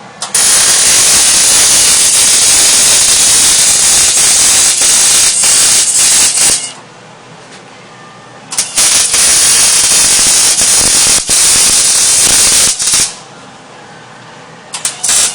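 MIG welding arc crackling and hissing as a bead is laid joining two pieces of metal: one long run of about six seconds, a pause, a second run of about four seconds, then a few short spurts near the end.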